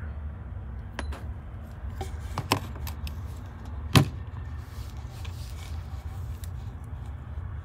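Small plastic trim clips clicking and snapping as they are pried out of a Volvo VNL heater cover panel with a flat screwdriver, with a few separate clicks and the sharpest snap about four seconds in. A steady low hum runs underneath.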